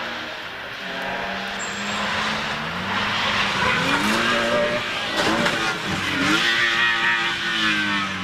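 Rally car engine revving hard, its pitch climbing and dropping several times as it goes through the gears.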